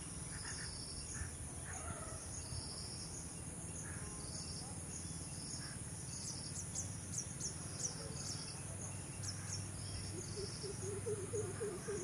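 Insects in grassland: a steady high-pitched drone with a pulsed chirp repeating about once a second. Brief high bird chirps come in the middle, and a quick run of short, lower notes comes near the end.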